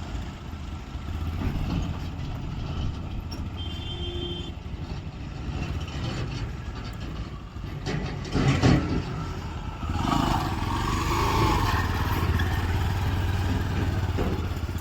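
A heavy vehicle engine running steadily, with a short loud clatter about eight and a half seconds in, and the engine growing louder from about ten seconds in.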